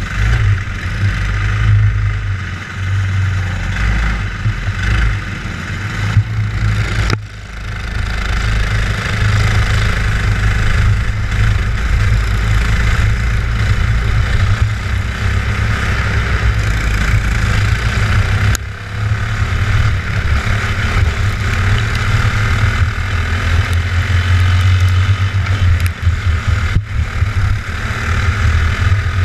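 Racing kart engine running hard, heard up close from a camera mounted on the kart, with other karts' engines around it. The level drops briefly about 7 seconds in and again about 18 seconds in.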